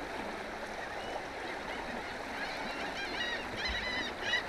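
Birds calling: a run of short, repeated calls starts about halfway through and grows louder, over a steady background hiss.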